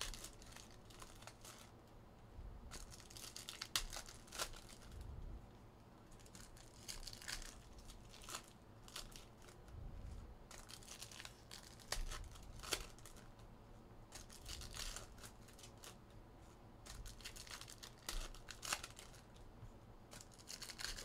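Trading-card pack wrappers crinkling and tearing as packs are opened, with the cards handled and stacked. The rustling comes in short, quiet spells, with a few sharp clicks among them.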